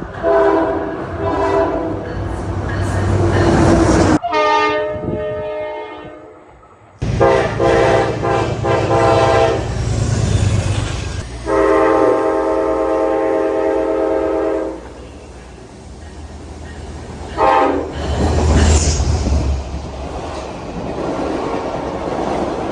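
Train horns sounding over the rumble of passing trains: several blasts, including one long blast of about three seconds midway and a short one a few seconds later.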